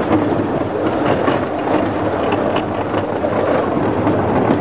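A 15-inch-gauge miniature railway train running along the track, heard from aboard an open carriage: a steady rumble of the carriages with the wheels clicking over the rail joints.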